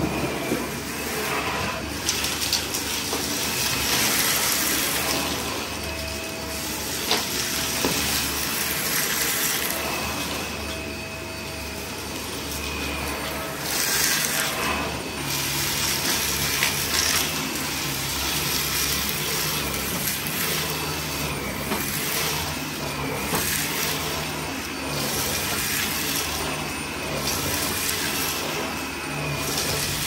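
Dyson Ball Animal upright vacuum cleaner running steadily while sucking up loose dirt from a carpet, with a faint high whine and scattered ticks of debris rattling up through it.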